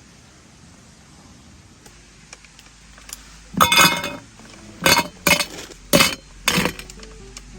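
Hard objects clinking and clattering: a short rattling clatter about three and a half seconds in, then four sharp clinks over the next two and a half seconds.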